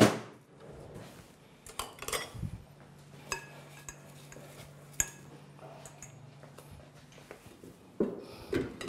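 A few separate sharp clinks and knocks of a glass mixing bowl being handled and moved on a wooden worktop, with a faint steady low hum in the middle stretch.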